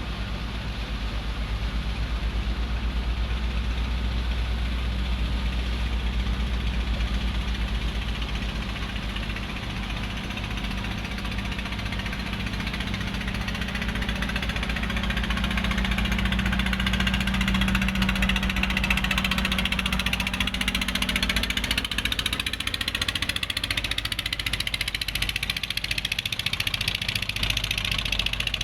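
A boat's engine running steadily with a low hum. About two-thirds of the way through, the low hum weakens while a higher hiss grows.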